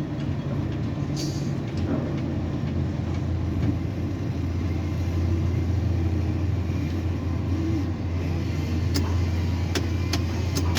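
Steady low hum of a tower crane's drive machinery, a little stronger in the middle, with a few sharp clicks near the end.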